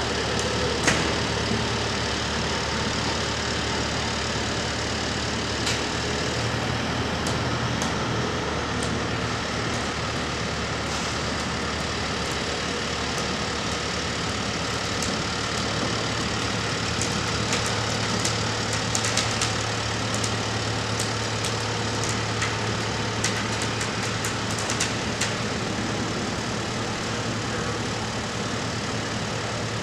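A heavy equipment engine idling steadily, with scattered clicks and knocks, most of them in the second half.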